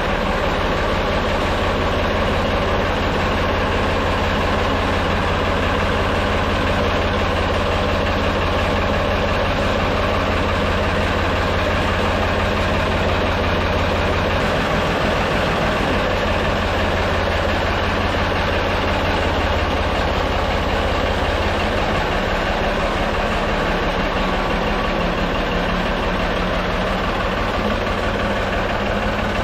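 Tractor engine idling steadily, its pitch shifting slightly a couple of times.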